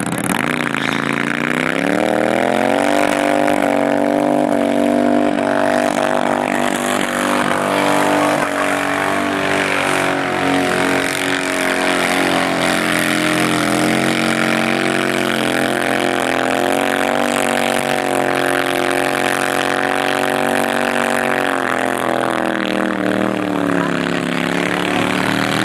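Motorcycle engine held at high revs through a long burnout, the rear tyre spinning on asphalt and smoking. The revs climb over the first two seconds, hold nearly steady with small wavers, dip briefly near the end and pick back up.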